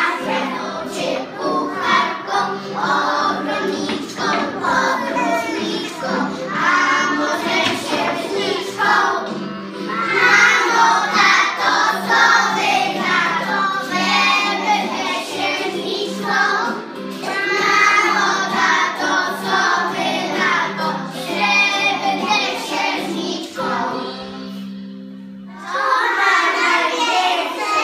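A group of preschool children singing a song together in unison, over an instrumental accompaniment. Near the end the singing breaks off for about two seconds while the accompaniment plays on, then the children come back in.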